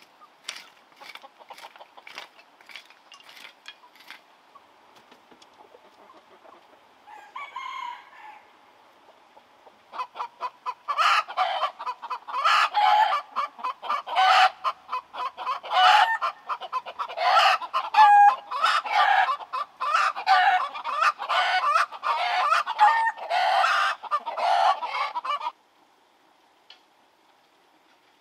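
Chicken clucking and calling in a long, loud run of quick calls that stops abruptly. Before it come light, irregular taps and one short call.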